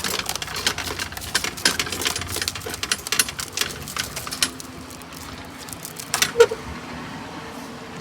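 Plastic bubble-wrap packaging crinkling and crackling as it is pulled off a new lawnmower's handle, busiest for the first four seconds or so, with one more brief crackle about six seconds in.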